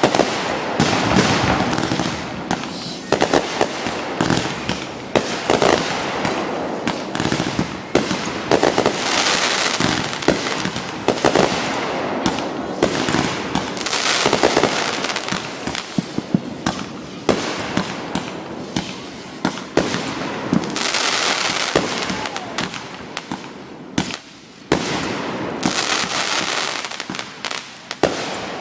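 A fireworks show: a rapid, unbroken barrage of bangs with spells of dense crackling from crackling stars, several times over.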